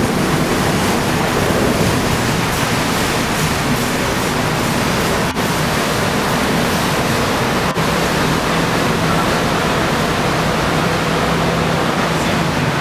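Steady rushing noise with a faint low hum underneath, from the engines and churning water of motor yachts cruising past. The sound drops out briefly twice, about five and eight seconds in.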